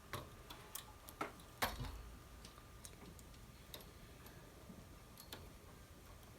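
Faint, irregular small clicks of a metal multi-prong transfer tool and knitting machine needles as stitches are lifted off and hooked onto neighbouring needles, the clicks more frequent in the first couple of seconds.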